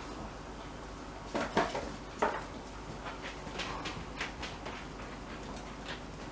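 Kitten playing with a crinkly wrapper on a tile floor: scattered knocks, scrapes and crackles, the two loudest knocks about a second and a half and two seconds in, then lighter taps and rustles.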